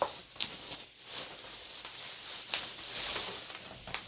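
Rustling of chair parts and packaging being handled, with a few light knocks and clicks.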